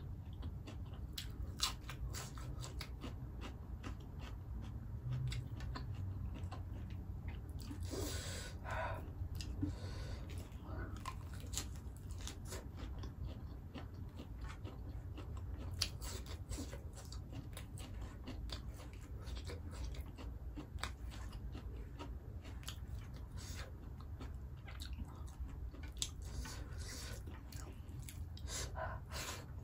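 Close-miked chewing of a mouthful of pork curry and rice, with many small wet mouth clicks and smacks scattered throughout over a steady low hum.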